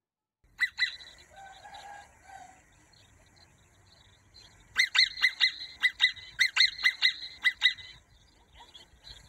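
Prairie dog giving shrill, scream-like calls: two near the start, then a rapid run of about fifteen sharp barks, several a second, from about five seconds in until nearly eight seconds.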